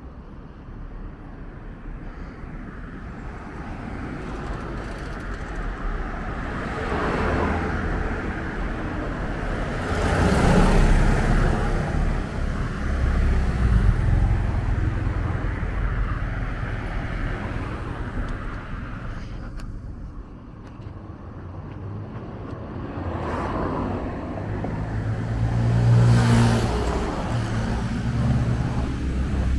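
Street traffic: motor vehicles passing one after another, each swelling and fading over a few seconds over a steady low engine rumble, the loudest passes about ten seconds in and near the end.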